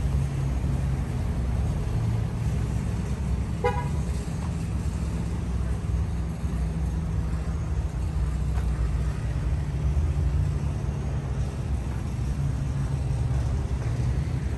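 A single short vehicle horn toot about four seconds in, over a steady low rumble of vehicle engines.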